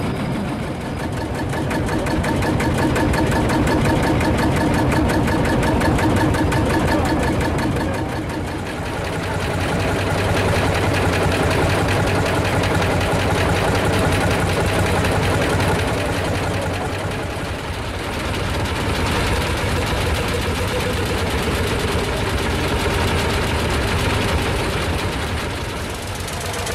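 Vintage single-cylinder two-stroke diesel tractor engines idling with a rapid, even knocking beat. The engine heard changes about 8 and 17 seconds in.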